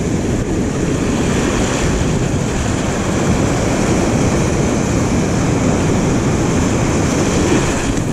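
Ocean surf breaking and washing around a person standing in the shallows, mixed with wind rumbling on the camera microphone: a steady, loud rush.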